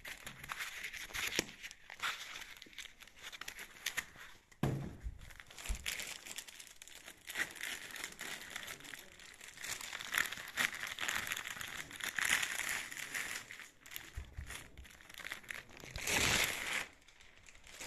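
Clear plastic wrapping bag crinkling and rustling as it is handled around a soundbar, with a couple of soft thumps along the way and a louder close rustle near the end.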